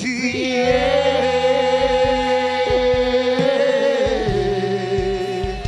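Worship music: a single sung note held for about four seconds over steady low held chords, stepping down slightly in pitch about four seconds in.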